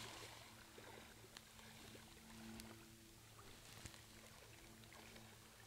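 Near silence: a faint, low, steady hum with a few faint clicks.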